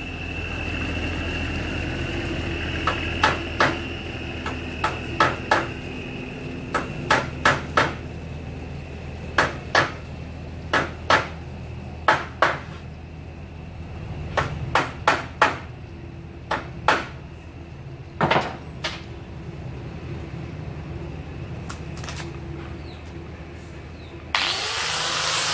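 Irregular sharp knocks on a wooden door frame, many of them coming two at a time, like light hammer taps. Near the end a handheld angle grinder fitted with a sanding disc switches on suddenly and runs loudly, ready for sanding the frame.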